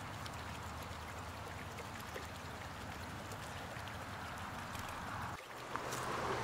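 Faint, steady outdoor ambience of stream water running. About five and a half seconds in it breaks off briefly and comes back as a slightly louder hiss.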